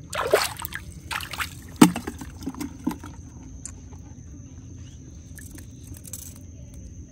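Water splashing as a small speckled trout is let go by hand into the water: a few short splashes in the first three seconds, the sharpest about two seconds in.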